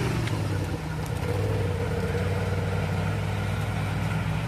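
Off-road vehicle engine running steadily at low revs.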